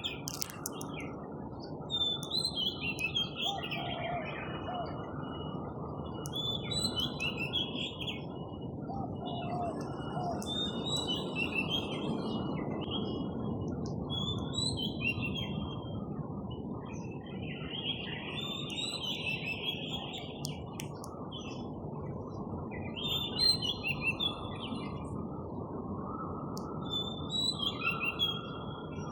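Songbirds chirping and singing in short repeated phrases, over a steady low rushing background.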